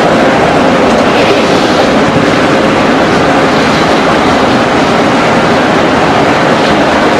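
Steady road and wind noise of a vehicle moving at speed, an even rushing sound with no change.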